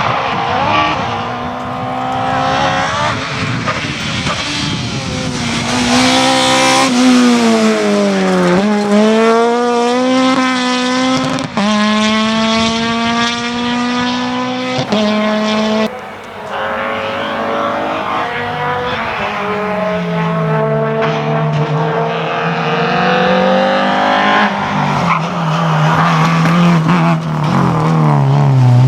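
Rally car engine revving hard, its pitch climbing and then dropping sharply several times as it changes gear and lifts off between bursts of acceleration.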